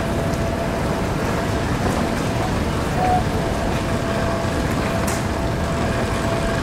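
Airport baggage carousel running: a steady mechanical rumble with a constant hum.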